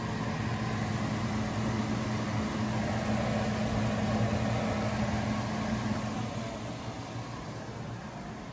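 Venison and okra frying in hot oil: a steady sizzle over a low, steady hum. The hum drops away and the sound gets somewhat quieter after about six seconds.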